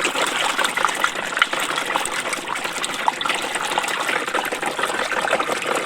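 Water gushing and splashing steadily, with many small crisp splashes, as a muddy toy construction vehicle is washed by hand.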